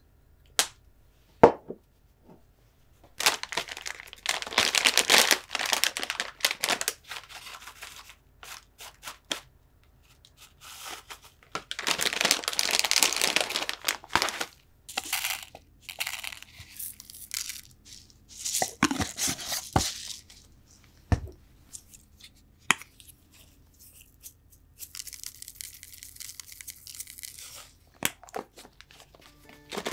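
Two sharp clicks of a plastic soy sauce bottle's cap, then long spells of crinkling and tearing as a plastic bag of shio kombu (salted kelp) is opened and shaken out over a tub of cucumbers. Near the end a steady light hiss of sesame seeds being sprinkled.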